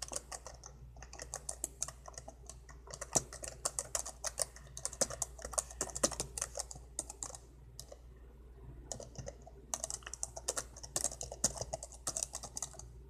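Typing on a laptop keyboard: quick runs of key clicks with short pauses between bursts, and one louder key clack at the very end.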